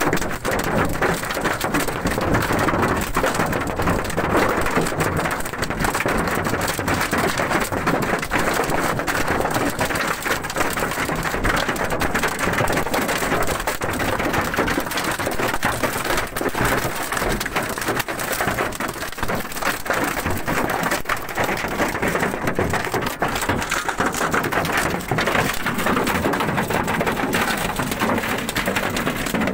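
Heavy hail pelting the roof and shattered windshield of a Fiat van, heard from inside the cabin as a dense, unbroken clatter of countless small strikes.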